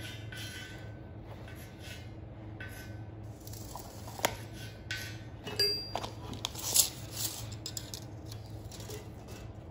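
Light clinks and knocks, loudest and most frequent between about four and seven seconds in, over a steady low hum.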